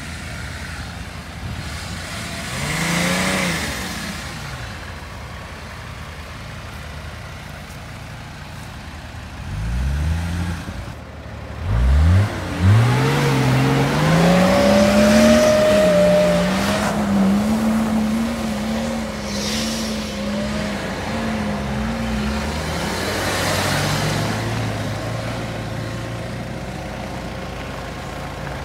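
Range Rover P38 engine revving: a short rise and fall in revs, then about twelve seconds in the engine climbs sharply and is held at high revs with a wavering pitch for around ten seconds before dropping back to a lower, steady running.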